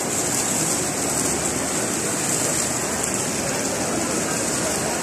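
Indoor fountain water splashing steadily: small jets and water running down a channel, an even rushing hiss.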